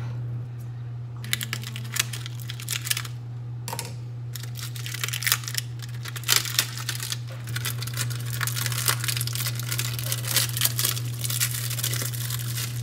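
Plastic shrink wrap crinkling and crackling as it is peeled by hand off a bath bomb, in irregular bursts with short pauses. A steady low hum runs underneath.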